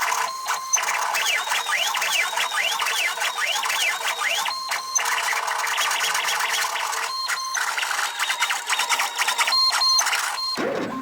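Stepper motors of a homemade CNC pen plotter running as it draws. Their whine rises and falls in pitch again and again as the marker changes direction and speed, with several brief pauses between moves.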